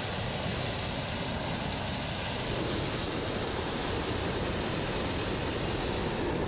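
Hot-air balloon's propane burner firing in one long, steady blast into the envelope, heating the air to stand the balloon upright during hot inflation.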